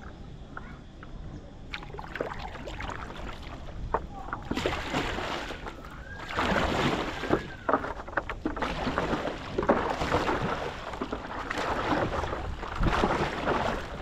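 Water splashing and rushing against a stand-up paddleboard as it is paddled, quiet at first and then coming in swells every couple of seconds from a few seconds in.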